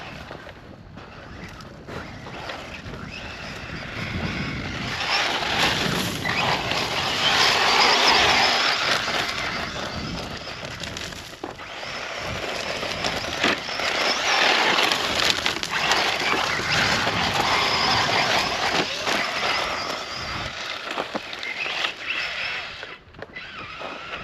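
Losi Tenacity TT Pro RC short-course truck being driven hard over dirt and sand, a rushing noise of tyres and motor that swells twice as the truck runs past, broken by scattered knocks from bumps and landings.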